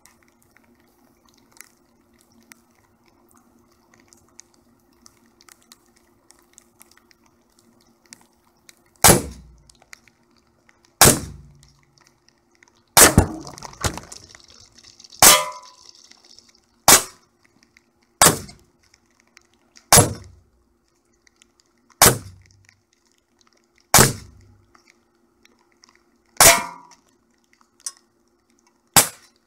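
Crosman Vigilante CO2 air pistol fired eleven times, starting about nine seconds in, at about one shot every two seconds, with pellets striking aluminium drink cans. Each shot is a sharp crack with a short ring, and the third is followed by a longer rattle.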